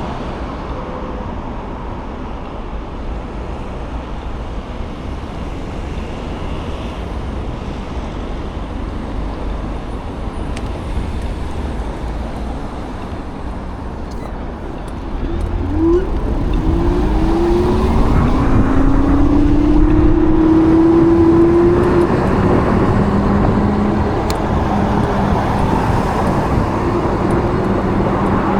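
Road traffic and riding noise, heard while riding an e-bike along a street. About halfway through it gets louder, and a whine rises in pitch, then holds steady.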